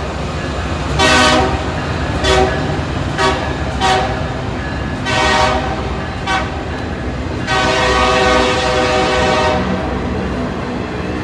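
Train horn sounding a series of blasts, several short ones and a few longer ones, ending with one long blast of about two seconds. The horn sounds several tones at once, over a steady low rumble.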